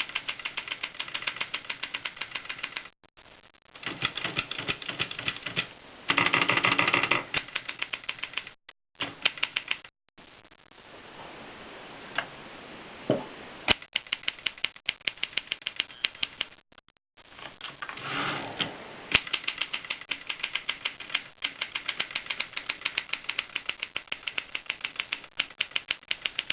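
Rheinmetall typewriter being typed on: quick runs of sharp key strikes, several a second, broken by short pauses, with a denser, louder clatter twice.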